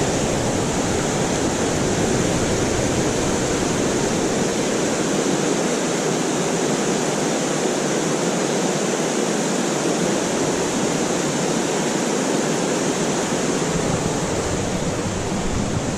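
Stream water rushing steadily over rocks, an even unbroken rush.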